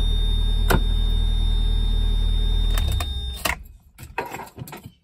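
1991 Mazda MX-5 Miata's 1.6-litre four-cylinder engine idling steadily, heard from inside the cabin, with a single click about a second in. The engine cuts off just before three seconds in, and a few light clicks and knocks follow.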